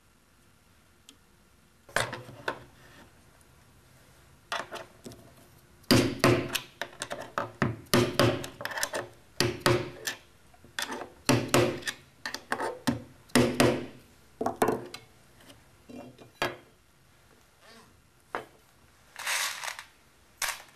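Mallet with plastic faces knocking on a plastic drilling template set on a chipboard panel: clusters of quick sharp knocks, most of them through the middle of the stretch, then a few single knocks and a short rasping scrape near the end.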